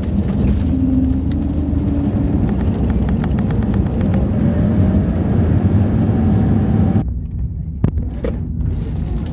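Airliner's turbofan engines and runway rumble heard loud from the cabin over the wing during landing, with a faint rising engine whine. About seven seconds in the upper part of the roar falls away sharply, leaving a lower rumble and a couple of knocks.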